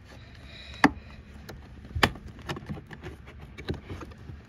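Plastic interior trim panel in a car being handled and pried at: two sharp clicks about a second apart, with lighter taps and rattles around them.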